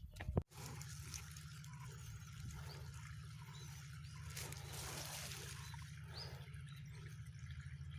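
Outdoor ambience: birds calling faintly over a steady low rumble of wind on the microphone. About half a second in there is a brief sharp noise, then the sound cuts off abruptly before the ambience resumes.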